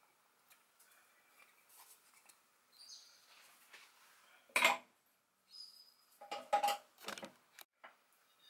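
Kitchen dishware being handled: short clinks and knocks of glass bowls and a utensil, the loudest a single sharp knock about halfway through, followed by a few lighter clinks.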